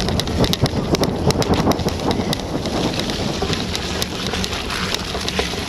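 Wind buffeting the microphone of a bike-mounted camera as a bicycle rolls fast over a muddy, rutted grass track, with irregular rattling clicks from the bike over the first two and a half seconds.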